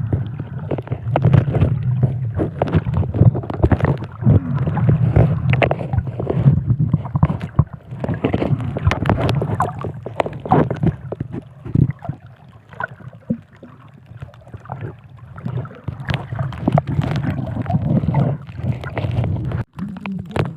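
Underwater sound: a low steady rumble with many sharp clicks and crackles throughout, easing off about two thirds of the way through.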